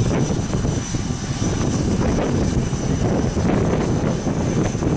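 Strong wind buffeting the microphone: a choppy, fluttering low rumble, with a thin steady high-pitched whine above it.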